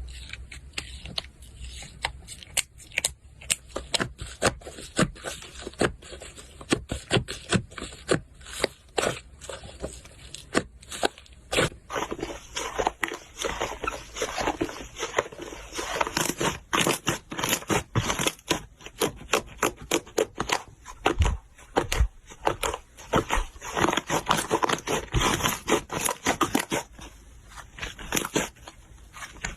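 Slime being squeezed and worked by hand, giving a dense, irregular run of sharp crackling and popping clicks that grows busier about halfway through.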